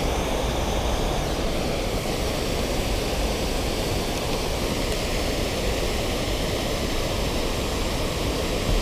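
Steady rushing of river water spilling over a low concrete weir, a continuous rush with a deep rumble underneath.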